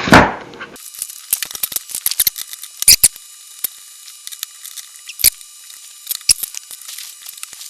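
Scattered clicks and knocks of a small electric pole-saw chainsaw's parts being fitted together by hand. The sharpest knocks come about three, five and six seconds in.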